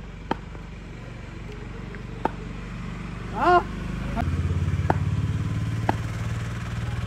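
An engine running steadily with a low hum, stepping up louder about four seconds in. A short shout comes just before, and a few sharp taps sound over it.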